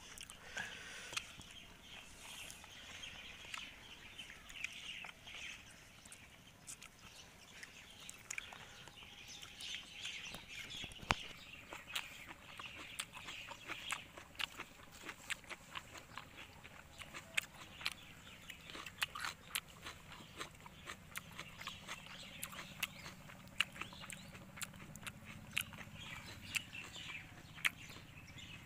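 Close-up eating sounds: people chewing and smacking their lips while eating rice biryani by hand from banana leaves, a steady stream of small sharp clicks.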